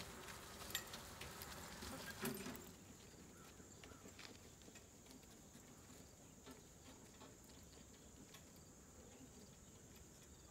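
Horse's hoofbeats on a dirt arena as it pulls a driving cart, sharp clicks for the first two seconds or so, then much fainter as it moves away. A steady high insect hum runs underneath.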